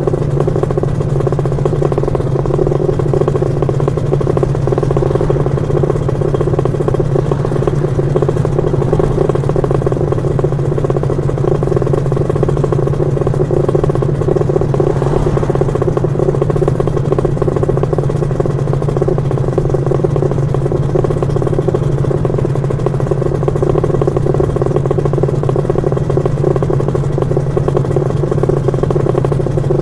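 Lambretta scooter's two-stroke BFA 325-type engine running steadily at an even pitch, with no revving up or down.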